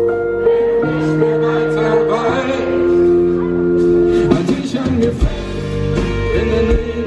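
Live pop-rock band playing on stage: acoustic guitar, electric guitar, bass and drums, with held chords that change every second or two over a steady bass line.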